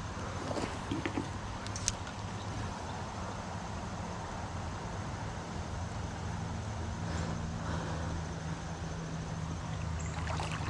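Steady drone of road traffic over an even rushing noise, with a few light clicks in the first couple of seconds.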